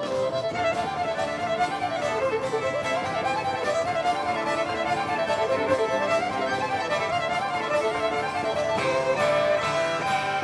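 Live country band music with a fiddle playing fast, rapidly moving runs over the band's backing: the instrumental fiddle outro that follows the song's final chorus.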